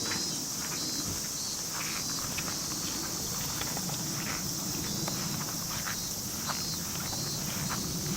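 Steady high buzz of insects, with irregular footsteps over a low outdoor rumble.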